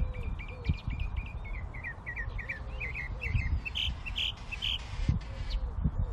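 Wild birds calling in the background: small songbirds chirping, with a quick run of short falling chirps about two seconds in and three louder notes after it. Low hooting notes come and go under the chirps, over a steady low rumble.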